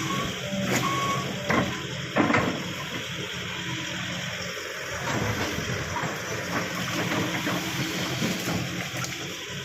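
Backhoe's diesel engine running steadily, with a couple of sharp knocks about one and a half and two seconds in.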